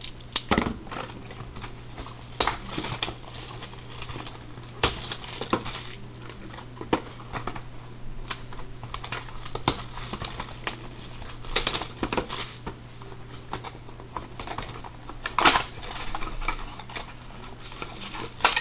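Crinkling plastic shrink wrap and rustling cardboard as a sealed 2018 Bowman Chrome hobby box of trading cards is unwrapped and handled, with scattered light knocks of card boxes on the table. A steady low hum runs underneath.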